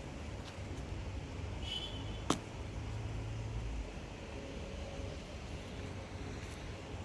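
Steady low rumble of distant road traffic, with a brief high squeak and then a single sharp click a little over two seconds in.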